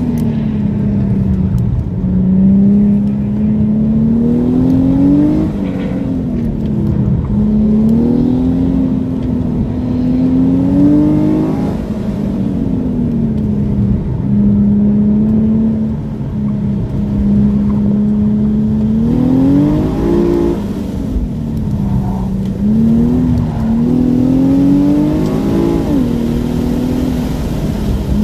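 Infiniti G37S's VQ37VHR V6 with aftermarket intake and exhaust, heard from inside the cabin, revving up and dropping back over and over as the car accelerates and brakes through a cone course, with a few quick sharp climbs in revs near the end.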